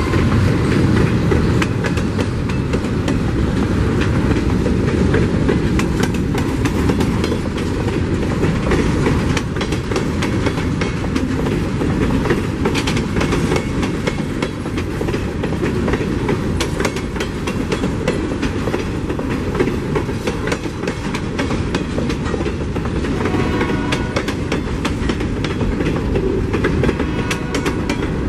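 Freight cars rolling past close by: a steady rumble of steel wheels on rail, with rapid clicks as the wheels pass over rail joints.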